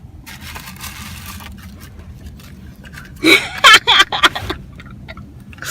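A person's voice in a few short, loud outbursts about three seconds in.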